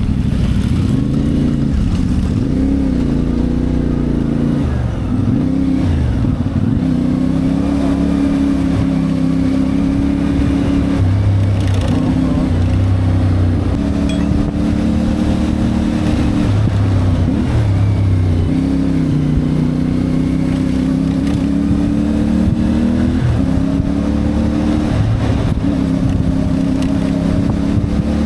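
CFMoto 450MT's parallel-twin engine heard from the rider's position, the revs climbing and dropping again and again as the throttle opens and closes through the gears.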